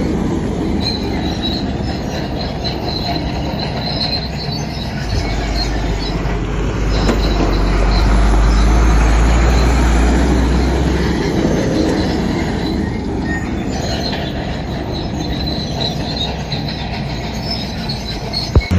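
Crawler bulldozer working: its diesel engine runs under load while the steel tracks clank and squeal in an on-and-off high screech. A sharp click comes just before the end.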